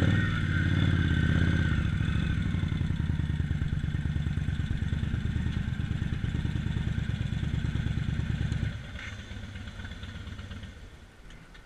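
Indian Scout V-twin engine running at low speed while the motorcycle creeps into a parking space. About three-quarters of the way through it is switched off and the engine note stops suddenly.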